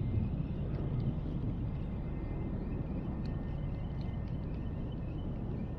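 Steady low rumble of wind on the microphone over open water, with a few faint small ticks.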